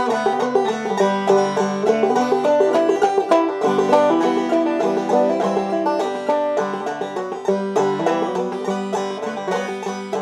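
Clawhammer banjo playing a solo instrumental break: a steady, rhythmic run of plucked notes and strums with drone strings ringing.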